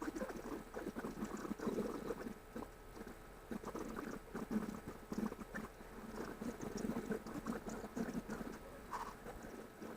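Mother cat and kittens, heard sped up in a time-lapse: a fast, continuous pattering and rustling with small chattering squeaks.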